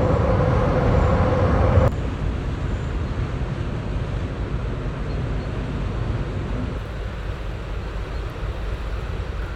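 Steady low rumble with a humming tone over it that cuts off abruptly about two seconds in, leaving a quieter low rumble.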